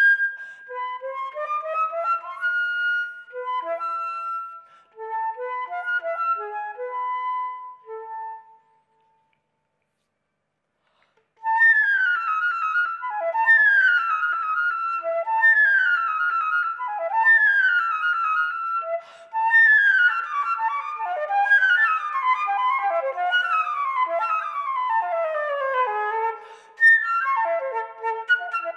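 Solo concert flute playing a virtuoso classical passage: a phrase of separate notes, then about three seconds of silence, then fast descending runs played one after another.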